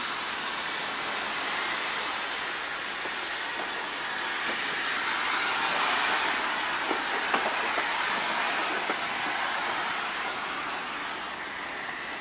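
Steam hissing loudly from the Kitson & Co 0-6-0T tank locomotive A.No.5 under steam test, swelling to its loudest about halfway through, with a few light knocks then, and easing off near the end.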